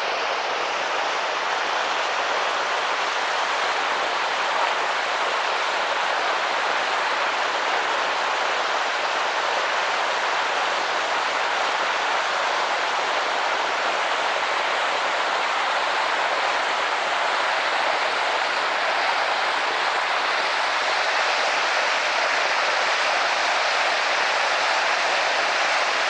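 Gurara waterfall's water crashing into the pool below, a steady unbroken rush, slightly louder near the end.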